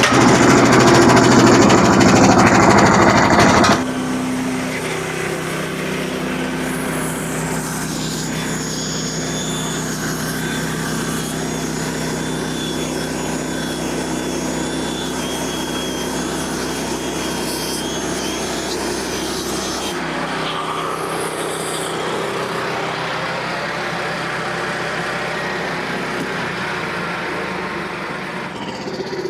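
Small gas engine of a band sawmill running loud and fast just after starting, then dropping to a steady idle about four seconds in. A thin high whine sits over the idle for about ten seconds, and the engine's tone shifts about twenty seconds in.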